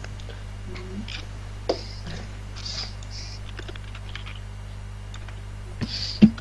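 Typing on a computer keyboard, irregular clicks picked up over a voice-call microphone, with a steady low hum underneath.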